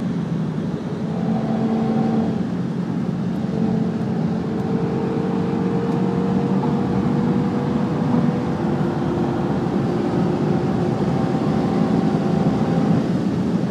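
Cabin noise of an Abt-tuned Audi TT RS at high speed: the turbocharged five-cylinder engine's steady drone under heavy wind and tyre noise, its note creeping slightly higher through the middle.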